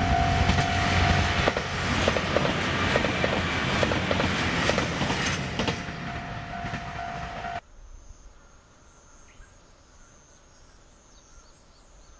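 JR Shikoku 2000-series diesel railcar passing close, its engine running under a stream of wheel clacks over the rail joints. The sound cuts off abruptly about seven and a half seconds in, leaving a faint quiet background with a steady high tone and a few small chirps.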